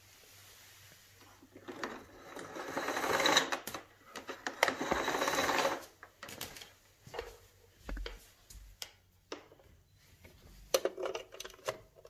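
Power cord being pulled out of the 1995 AEG Öko Vampyr canister vacuum's cord reel: a rattling whir lasting about four seconds. Scattered clicks and knocks follow as the cable and plug are handled, with the plug pushed into a wall socket near the end.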